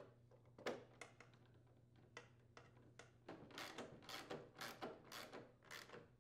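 Hand nut driver turning a mounting screw into a snowblower's plastic shroud: a few light clicks, then a run of quick scraping turns from about three seconds in.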